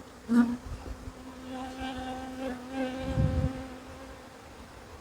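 A honey bee buzzing close to the microphone: a steady hum that wavers slightly in pitch for about four seconds, then fades. A sharp knock comes just as the buzz starts, and a low rumble of handling noise comes about three seconds in.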